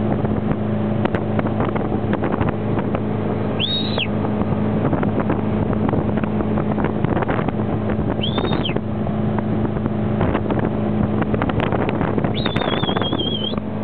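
Tow boat's engine running steadily at towing speed, with rushing water and wind on the microphone. A short high whistle sounds twice, then a longer wavering one near the end.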